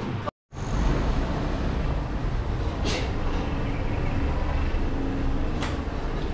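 Steady rumbling road and vehicle noise, with two brief hisses about three seconds and five and a half seconds in.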